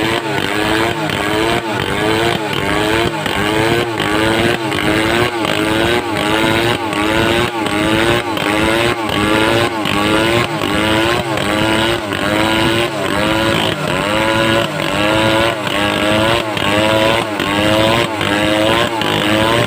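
Home-assembled two-stroke chainsaw running under load, cutting lumber. Its engine pitch rises and dips in a steady rhythm about one and a half times a second as the saw works through the cut.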